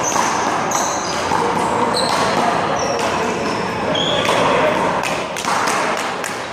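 One-wall handball play: several sharp slaps of the ball, bunched in the second half, with short high squeaks, over steady background chatter of voices.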